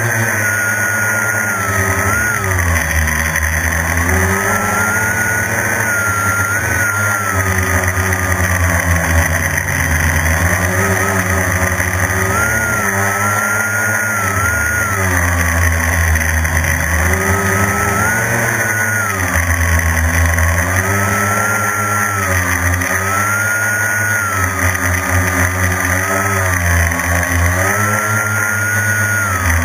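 Quadcopter's electric motors and propellers whining, heard from the camera on board, the pitch rising and falling every second or two as the throttle changes.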